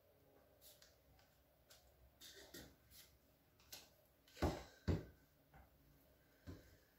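Tarot cards handled and shuffled by hand: soft scattered clicks and riffles of card stock, with two low knocks about half a second apart a little past the middle, as the deck meets the desk.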